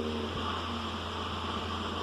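Nissan 350Z's 3.5-litre V6 idling steadily with a low, even hum.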